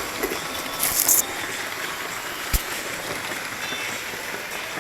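Lima OO gauge model train running on the track, a steady running noise of motor and wheels on rail. A brief high hiss about a second in and a single sharp click about two and a half seconds in.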